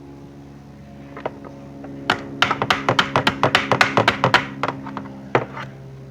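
Quick run of sharp taps or knocks, about five a second, from about two seconds in, thinning to a few single taps near the end, as a part of the quad's starter assembly is worked back into place. A steady low hum runs underneath.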